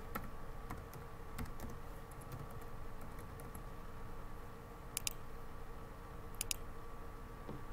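Typing on a computer keyboard: scattered sharp key clicks, some in quick pairs, over a faint steady hum.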